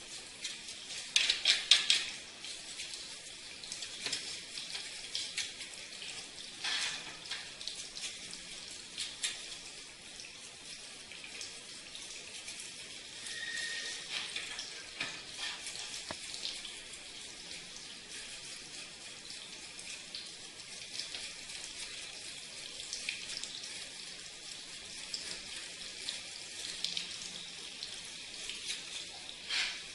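Water spraying and splashing, an irregular hiss with scattered clicks and a few louder splashes in the first two seconds, as an air conditioner is washed.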